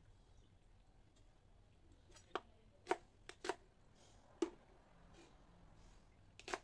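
Cleaver chopping salted mustard greens on a cutting board: about half a dozen separate, unevenly spaced knife strokes, beginning about two seconds in.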